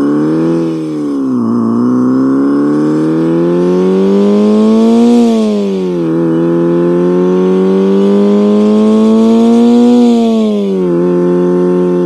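Homemade synthetic engine sound imitating a four-cylinder with equal-length exhaust, made by an infrared photoreflector reading a patterned disc spun by a DC motor. After a short rise and fall, the pitch climbs steadily for about four seconds and drops quickly, twice, like a car accelerating through upshifts, then holds steady near the end.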